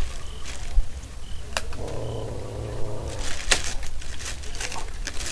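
Trail-camera recording: scattered sharp clicks and crackles, like something moving through dry bones and debris. A short high chirp comes several times, about a second apart, over a steady low hum.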